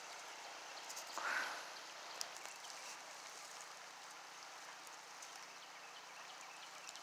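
Faint steady hiss of the outdoors with a few light crackles of dry leaf litter underfoot, and one brief louder rustle about a second in.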